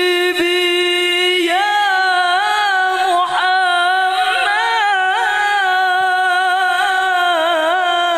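A man singing solo into a microphone without accompaniment, in long held notes with many turns and ornaments in the melody, in the style of Islamic sholawat.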